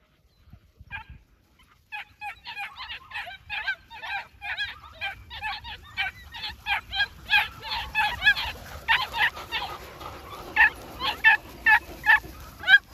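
Huntaway puppies barking in a rapid run of short, high-pitched yaps, about three or four a second, starting about a second in and then going on almost without a break.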